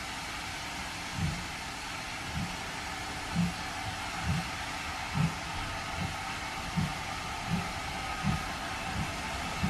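Steam locomotive pulling a train away, its exhaust beats about one a second and quickening slightly, over a steady hiss.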